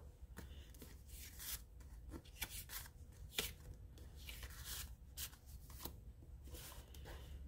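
Faint rustling and sliding of paper and cardstock being handled, a string of short swishes with a few light taps as card pieces are picked up and set down.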